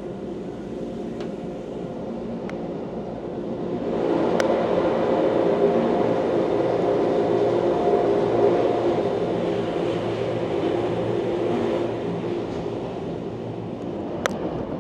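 Wengernalpbahn electric rack-railway train running, a steady noise with several held humming tones. It grows louder about four seconds in and eases back near twelve seconds, with a few sharp clicks, the loudest near the end.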